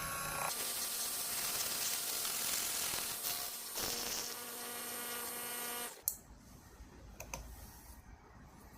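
SVANFON mini lathe running, its spindle motor humming with a steady whine while the turning tool cuts the outer diameter of a test bar. The sound stops abruptly about six seconds in, followed by a few faint clicks.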